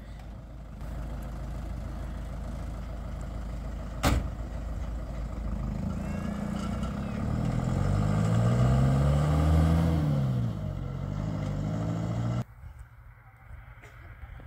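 A motor vehicle engine running, its pitch rising and then falling as it speeds up and slows down, with a single sharp knock about four seconds in. The engine sound cuts off suddenly near the end.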